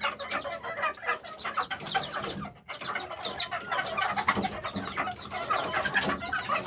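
Several young Bangkok gamecocks clucking and calling over one another, a noisy run of short calls with a brief lull about two and a half seconds in.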